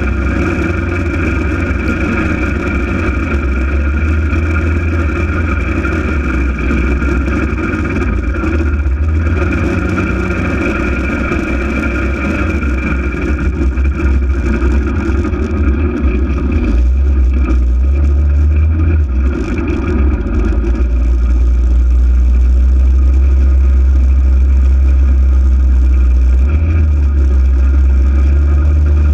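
Polaris RZR 800 side-by-side's twin-cylinder engine running steadily while under way. It makes a constant low drone with a steady higher whine above it, and grows a little louder about two-thirds of the way through.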